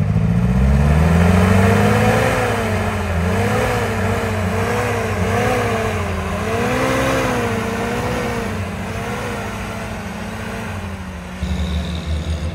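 Willys flat-fender Jeep engine revving as the Jeep pulls away through deep snow. The engine note climbs over the first couple of seconds, then rises and falls over and over under load, and drops to a lower, uneven running sound near the end.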